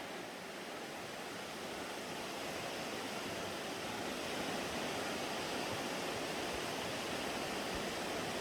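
Rushing creek water making a steady, even wash that grows a little louder toward the end.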